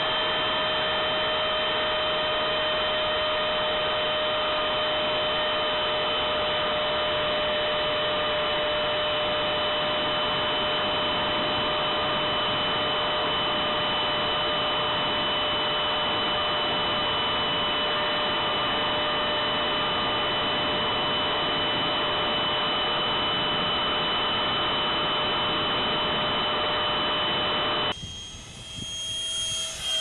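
Electric ducted fan of a foam RC F/A-18 jet heard through its onboard camera's microphone: a steady whine at constant throttle over rushing air. Near the end the sound switches to the jet heard from the ground, quieter at first, with its whine dropping in pitch as it passes.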